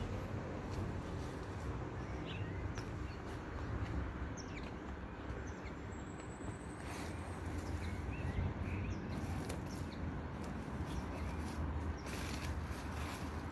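Outdoor garden ambience: a steady low rumble with scattered faint bird chirps. Toward the end comes rustling and scraping as dry weeds and debris are pulled by gloved hands.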